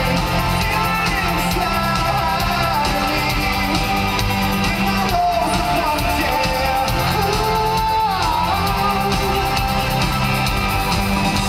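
A live rock band plays a song, with electric guitars, keyboards and drums, and a voice sings over it.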